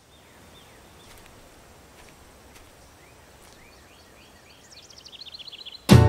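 Faint open-field ambience with birds calling: scattered single down-slurred chirps, then a quick run of repeated chirps building over the last second or so. Music with guitar cuts in abruptly right at the end.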